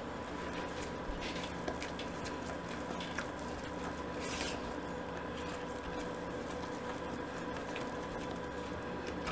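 Spatula stirring marshmallow creme into thick, hot fudge in a saucepan: faint, soft squishing and scraping against the pot.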